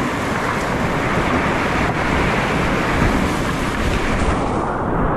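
Whitewater rushing down a steep boulder-strewn creek, a loud, steady wash of water noise. A little after four seconds in, the hiss turns suddenly duller.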